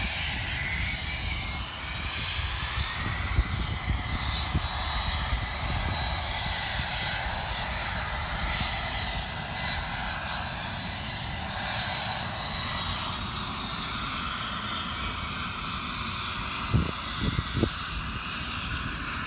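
Embraer Phenom 300 business jet taxiing down the runway. Its twin turbofan engines give a steady whine, with high tones that drift slowly in pitch. A few short knocks come near the end.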